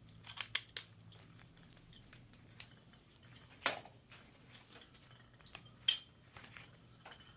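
Small mixing-valve parts clicking and clinking as they are handled and fitted: a few quick clicks in the first second, then single sharper ones scattered through, over a faint low steady hum.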